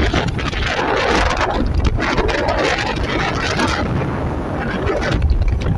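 Wind rushing and buffeting against the microphone of a moving open-sided vehicle, with uneven low rumble from the ride along the road.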